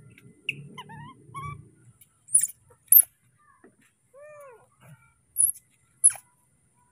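Baby macaque calling: four short, sharp, high-pitched squeaks, the loudest sounds, with a few softer sliding calls and one lower arching call about four seconds in.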